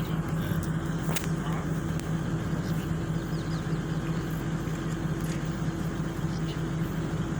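A vehicle's engine running steadily, heard from inside as a low, even hum while it drives along.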